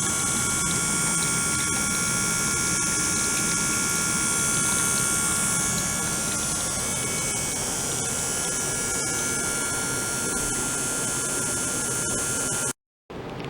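Small circulation pump running, with water flowing through an ultrasonic tank: a steady hiss and hum with several faint steady whines. It cuts off abruptly near the end, and a quieter hiss follows.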